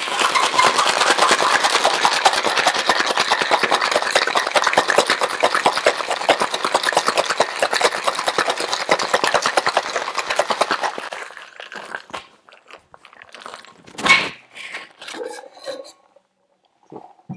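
Ice rattling hard inside a tin-on-tin Boston cocktail shaker shaken vigorously for about eleven seconds, then stopping. About three seconds later a single sharp knock as the tins are broken apart, followed by a few light clinks.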